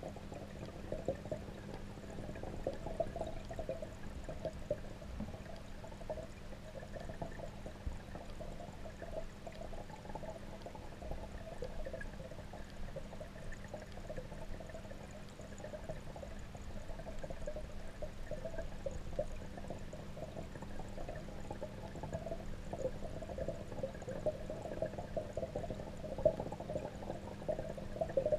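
Water in a pond heard underwater: a continuous muffled bubbling and trickling, with a steady low hum beneath it.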